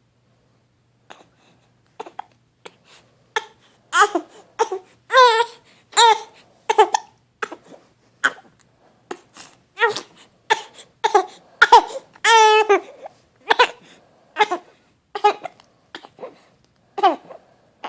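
A young child hiccuping over and over, the short hiccup sounds mixed with brief high-pitched vocal sounds. One longer high squeal comes about twelve seconds in.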